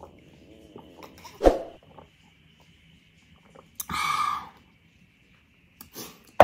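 Close-miked drinking from a glass: a gulp about a second and a half in, then a breathy open-mouthed exhale about four seconds in. Light clicks of the glass come near the end.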